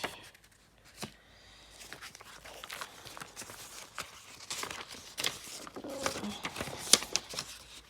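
Paper and plastic packaging rustling and crinkling as it is handled, with scattered small clicks and one sharper tap about seven seconds in.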